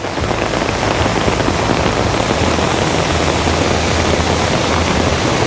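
Flooded mountain creek running as a torrent: a loud, steady rush of fast water.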